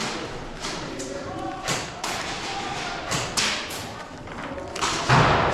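A series of irregular sharp thumps and knocks, the loudest and heaviest about five seconds in, with faint voices in the background.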